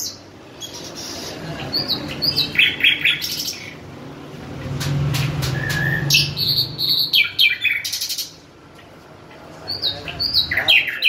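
Caged bulbul singing in three bursts of quick whistled phrases mixed with sharp clicking notes, about two, six and ten seconds in.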